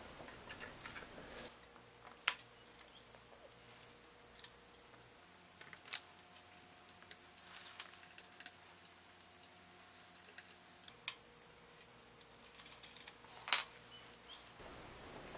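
Faint, scattered clicks and knocks of hands working a rifle's action loose from its freshly glass-bedded laminated wood stock. The sharpest knocks come about two seconds in and near the end.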